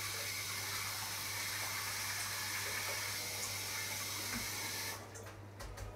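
Cold water running steadily from a kitchen tap as leeks are rinsed of mud, cutting off about five seconds in when the tap is turned off.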